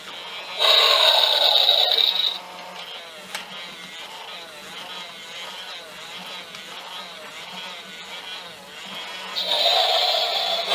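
Battery-powered Robo Alive toy dragon: its electronic sound effect plays loudly through the small speaker about half a second in for under two seconds, and again near the end. Between the two, its small electric motor and plastic gears whir and rattle steadily.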